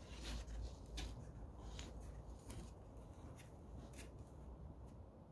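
Faint scraping of a small carving tool shaving a burr off the edge of a stiffened clay lid. It comes as a handful of brief scratches about a second apart.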